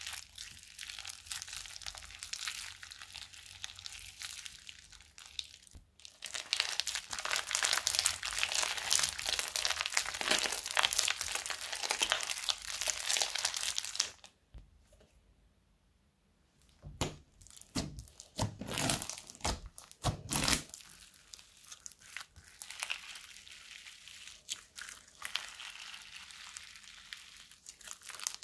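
Crunchy slime full of foam beads being kneaded and squeezed by hand, giving a dense run of crackling and popping. About halfway there is a short quiet pause, followed by a few separate sharper crackles and then softer crackling.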